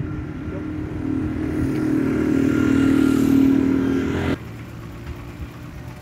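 A motor vehicle's engine running steadily and growing louder over a few seconds, then cutting off abruptly a little over four seconds in. A quieter background hum follows.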